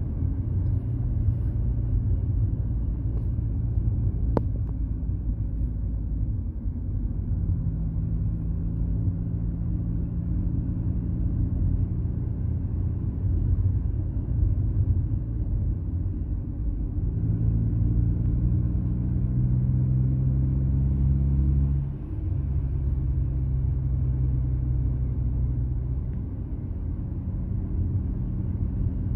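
Car engine and road rumble heard from inside the cabin while driving: a steady low drone whose pitch climbs about two-thirds of the way through and then drops abruptly, like a gear change. A single faint click sounds about four seconds in.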